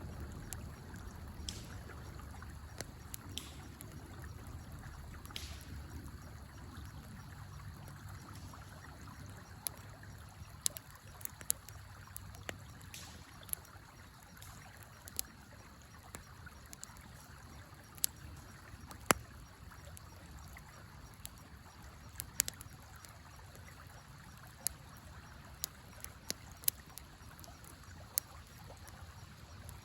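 Wood fire crackling, with irregular sharp pops scattered throughout and the loudest about two-thirds of the way in, over the steady low rush of a flowing river.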